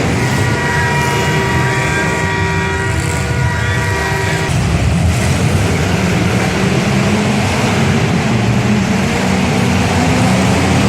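Demolition derby car engines running loud and steady. A held pitched tone sounds over them for about the first four and a half seconds, then stops.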